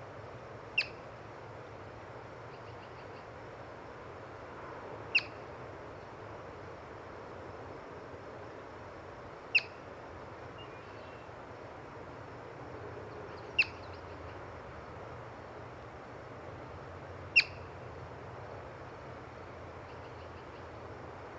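Yellow-bellied marmot giving loud, sharp alarm chirps, five in all, one about every four seconds. Each chirp is a brief high whistle-like note that drops quickly in pitch.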